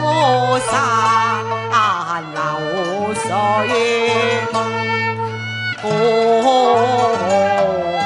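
Cantonese opera music: a bowed Chinese fiddle plays the melody with slides and vibrato over steady sustained low notes from the accompanying ensemble.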